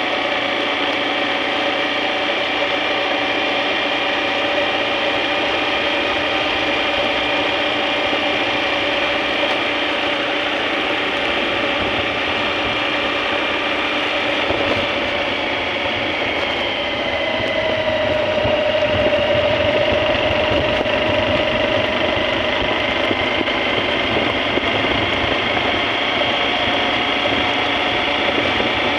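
Motorcycle engine running steadily while riding at road speed. A little past halfway its tone dips slightly and then holds, a bit louder for a few seconds.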